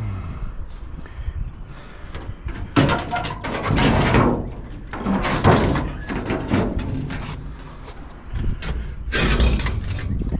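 Scrap metal clanking and scraping as pieces are handled and loaded, in several short bouts.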